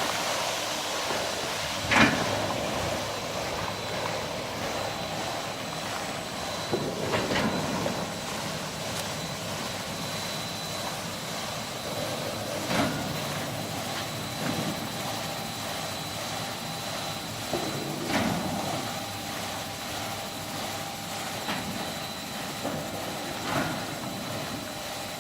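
Automatic carpet-washing machinery running steadily with a faint whine, a knock or clunk sounding regularly about every five and a half seconds.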